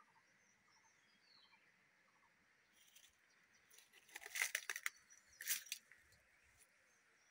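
Close crackling and scraping against the phone's microphone, a dense burst about four seconds in and a shorter one a second later, from a hand against the fig tree's bark. Underneath, a faint steady insect hum and a few faint bird chirps.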